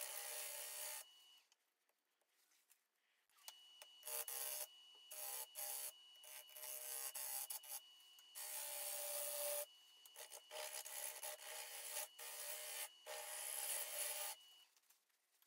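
Turning gouge cutting a spinning spalted sugar maple bowl blank on a lathe, rough turning the outside: a run of dry, hissing cuts broken by short pauses, with a near-silent gap about two seconds in.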